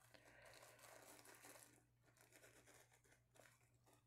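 Faint rustling of a thin tissue-paper sheet being handled and lifted out of a cardboard earbud box, for about two seconds, followed by a few light ticks.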